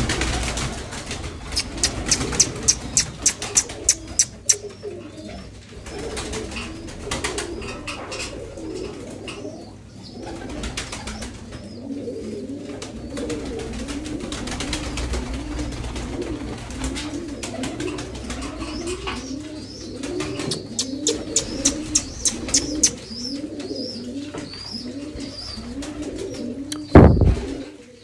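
A flock of domestic pigeons cooing over and over, with two runs of rapid wing-flapping as birds take off. Near the end comes one brief loud bump, the loudest sound here.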